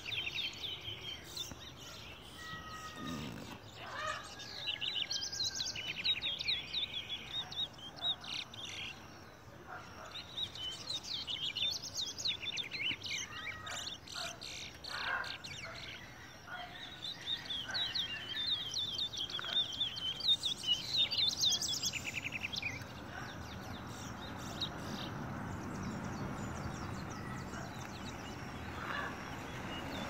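Caged towa-towa songbirds singing: bursts of rapid, chirping trilled song repeated again and again, thinning out after about 22 seconds into a faint steady background noise.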